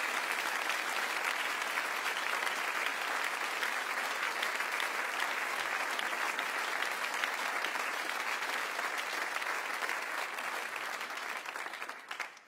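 Studio audience applauding steadily, many hands clapping, dying away near the end.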